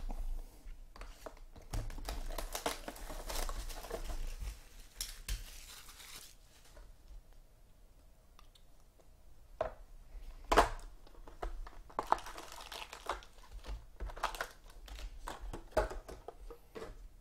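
Plastic wrapping on a sealed trading-card box crinkling and tearing as it is pulled off and the cardboard box is opened, in irregular spells. A single sharp snap, the loudest sound, about ten and a half seconds in.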